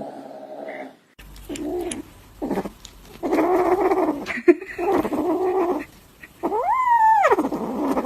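Cat vocalizing: harsh, drawn-out calls, then one long meow that rises and falls in pitch near the end.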